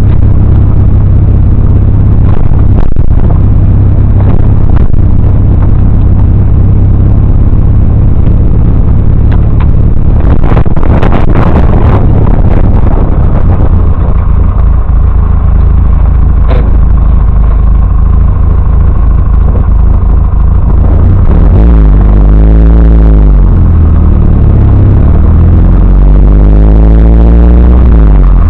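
Triumph TR3A's four-cylinder engine running while driving, recorded so loud that the dash cam's sound is overloaded and distorted. A few sharp knocks come about ten seconds in, and in the last third the engine pitch rises and falls several times as the revs climb and drop.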